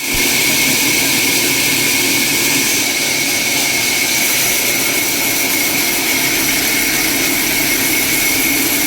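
An electric power tool running steadily at full speed with a high whine, with no change in pitch or load.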